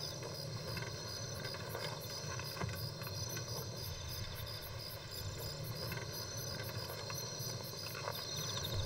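Night ambience of crickets chirping steadily in even, fast pulses over a faint low rumble.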